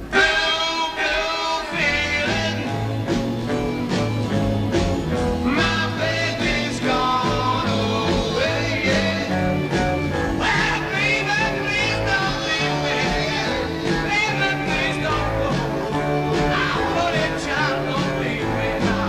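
1960s British rhythm-and-blues band playing: a male lead singer over electric guitars, organ, bass and drums. The bass drops out briefly near the start.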